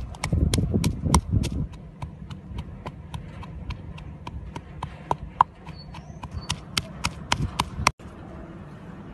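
Wooden pestle knocking in a wooden mortar, pounding fresh spices and chillies into a paste in quick, steady strokes, about three to four a second. The knocking stops short about eight seconds in.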